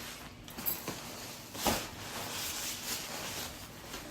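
Packaging being opened and clothing pulled out: irregular rustling and crinkling, with a louder rustle about one and a half seconds in.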